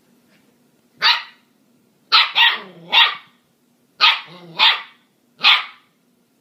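Puppies barking in play: six sharp, high barks about a second apart, starting about a second in, a couple of them trailing into a short low growl.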